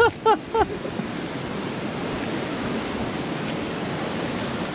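Steady rush of a river flowing. Three short pitched calls sound right at the start, then only the even water noise.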